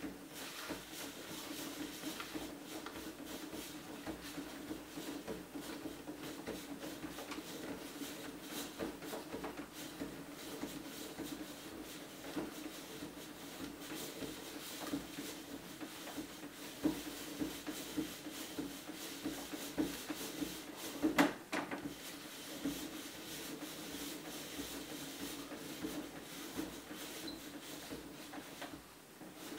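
1967 Tube Stock destination blind mechanism running, winding the roller blind past its destinations with a steady hum and the rub of the blind material. A sharp click about two-thirds of the way through, and the sound drops as the blind stops near the end.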